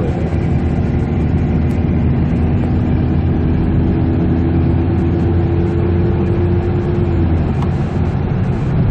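Kia Carnival II diesel van heard from inside the cabin at steady road speed: continuous engine and road rumble. A steady hum rides on top and fades out about seven seconds in.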